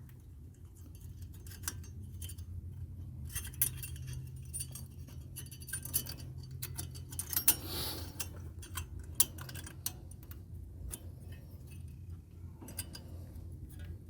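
Light metallic clicks and clinks of steel brake pad clips being handled and snapped into a front brake caliper bracket, with a louder scraping clatter about eight seconds in.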